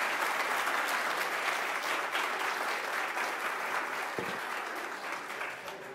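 An audience applauding steadily, the clapping slowly dying away near the end.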